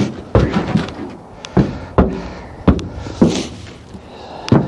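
About eight sharp knocks and thunks, irregularly spaced, from handling in a pickup truck bed fitted with a cargo unloader.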